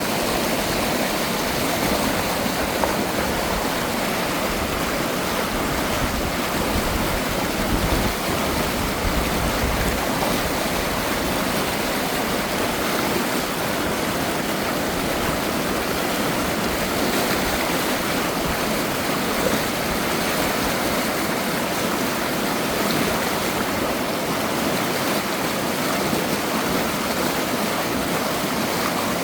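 Mountain stream water running steadily through gaps between rocks.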